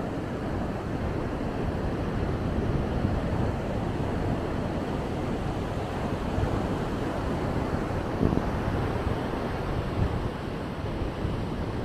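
Steady wash of ocean surf mixed with wind buffeting the microphone, a continuous low rumbling noise.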